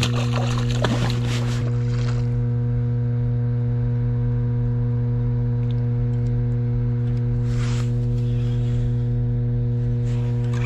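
A steady low hum with several even overtones. Over it, scraping and rustling of fishing gear being handled on rocks in the first two seconds, and short scrapes near eight and ten seconds.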